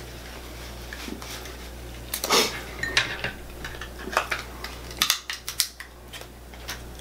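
Cooked lobster shell being cut and cracked with kitchen shears: irregular snips, cracks and clicks, with shell and utensils clinking on the serving tray. The loudest crack comes about two seconds in, and a quick run of clicks comes about five seconds in.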